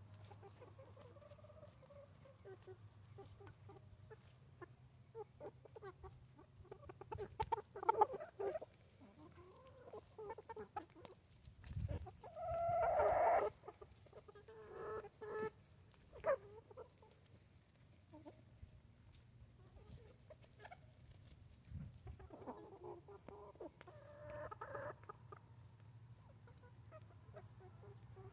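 Small flock of bantam Cochin, satin and Silkie hens clucking as they feed, in short scattered bursts, with one louder call lasting about a second near the middle.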